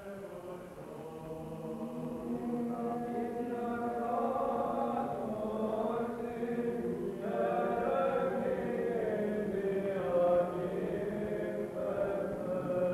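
Male voices singing Byzantine chant over a steady held drone note, swelling gradually louder.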